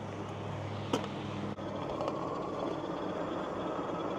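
Hiboy P6 electric fat-tire mountain bike being ridden: a steady low hum under even tyre and wind rush, with a single click about a second in.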